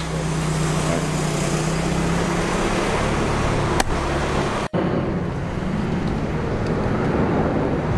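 Street traffic noise with a steady engine hum. A single sharp click comes a little under four seconds in, then the sound drops out for a moment and returns as a steadier traffic rumble.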